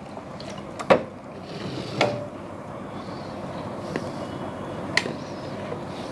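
Hands fitting a cheesecloth into the mouth of a plastic jar: four short sharp clicks and knocks on the plastic, the first the loudest, over steady background noise.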